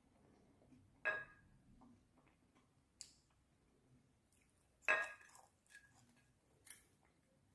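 Two sharp clinks of a small ceramic sauce cup knocking against a ceramic plate, about four seconds apart, each ringing briefly, with a few fainter ticks and clicks between them.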